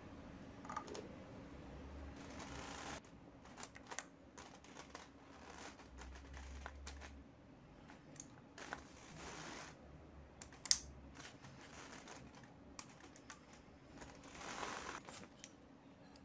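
Faint, scattered light clicks and small metal handling noises as valve shims are picked out of a motorcycle cylinder head with a pen-type magnetic pickup tool. There is one sharper click about two-thirds of the way through, and a couple of soft rustles.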